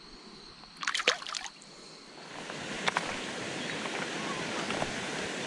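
A short burst of splashing about a second in as a fish is let go in shallow creek water and kicks away. After that comes a steady rushing hiss with a few scattered clicks.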